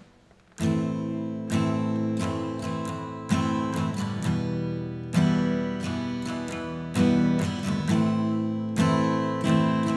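Steel-string Yamaha acoustic guitar with a capo, strummed in a steady rhythm of chords that starts about half a second in. The notes ring on with the natural reverb of the bare room.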